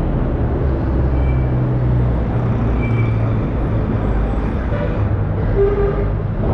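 A vehicle engine running steadily, a low hum with an even rushing noise over it.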